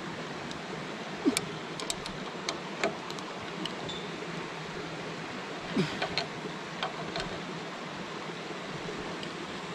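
Steel wrenches clicking and scraping on a brass fitting as it is tightened, with scattered sharp clicks bunched in the first three seconds and again around six seconds in, and a couple of brief squeaks. A steady rushing noise underlies it all.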